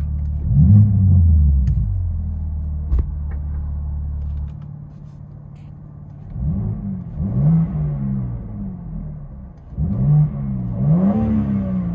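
2022 BMW M3 Competition's 3.0-litre twin-turbo inline-six idling through its dual exhaust with X-pipe and resonator delete, blipped once quickly about half a second in. The idle gets quieter about four and a half seconds in, and the engine is then revved in two pairs of short blips in the second half.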